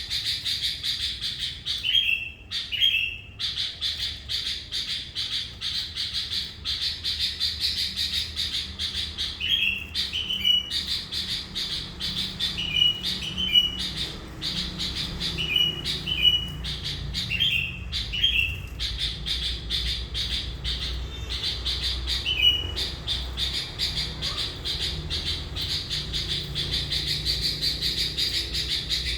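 Sooty-headed bulbul (kutilang), a decoy bird in full song, giving short two-note calls every few seconds over a continuous high, fast chattering buzz.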